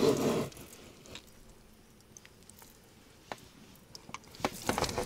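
Wet handling noises of a freshly caught catfish on the rubber floor of an inflatable boat: a squelching rustle at the start, then a quiet spell with a few soft ticks, and scattered clicks and taps near the end.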